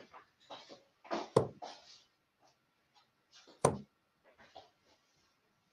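Two darts striking a bristle dartboard about two seconds apart, each a sharp hit, with faint handling noises between them.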